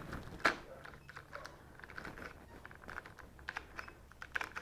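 Light, irregular clicks and taps of hard plastic mower-handle parts being handled and the lever being worked, with one sharper click about half a second in.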